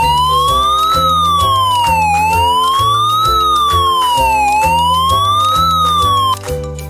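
Ambulance siren sound effect wailing slowly up and down in pitch three times, cutting off about six seconds in, over background music.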